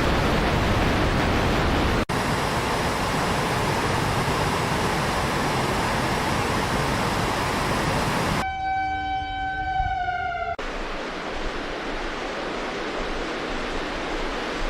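Steady loud rushing noise of flood water and rain, broken by abrupt cuts between clips. For about two seconds past the middle a wavering, pitched wailing tone, like a siren, sounds over it.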